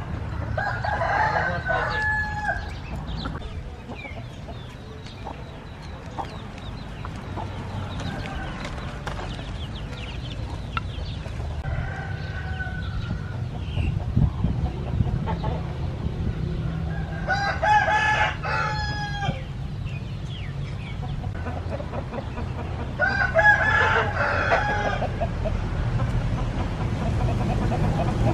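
Roosters crowing: three full crows of about two seconds each, near the start, past the middle and near the end, with a fainter call in between, over a steady low hum.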